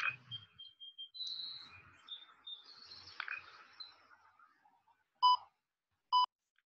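Birds chirping faintly in the background, then two short, loud electronic beeps about a second apart near the end.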